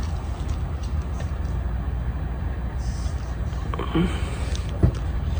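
Gulf Coast Riviera II ceiling fan running, with a steady low motor hum and the rush of air from its heavy blades. A few light clicks or knocks come about four to five seconds in.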